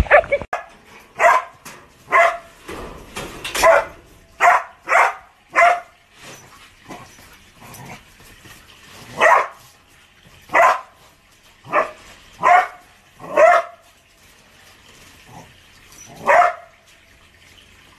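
A dog barking repeatedly, about a dozen short loud barks in uneven clusters, with a pause of a few seconds part-way through.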